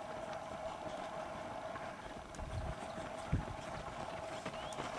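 Runners' footfalls on a dirt track, faint while the pack is still distant, with a couple of louder low thuds about two and a half and three and a half seconds in, over a steady faint hum.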